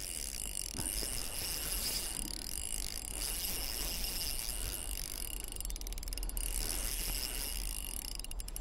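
Shimano Vanford spinning reel working while a large smallmouth bass is played on light line: a steady mechanical whirr from the reel, with two short runs of rapid ticking, about six seconds in and again near the end.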